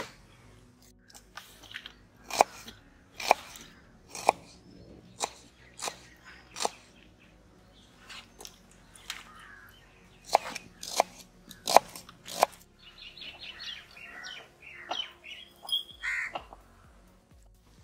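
Kitchen knife chopping tomatoes and onions on a small wooden board: sharp, irregular chops about once a second. For the last few seconds birds are calling.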